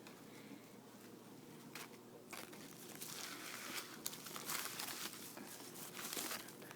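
Bubble wrap rustling and crinkling faintly and irregularly as an animal moves on it, getting busier from about three seconds in.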